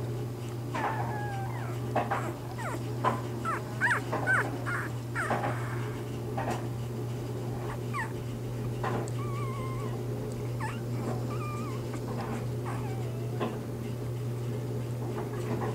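Newborn Bernese mountain dog puppies squeaking and whimpering in short, high cries that slide up and down in pitch, busiest in the first six seconds and sparser after. A steady low hum runs underneath.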